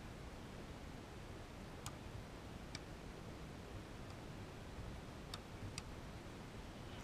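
Faint, sharp slaps of a volleyball being struck by players' hands and arms during a beach volleyball rally, two near two seconds in and two more near five and a half seconds, over a steady hiss.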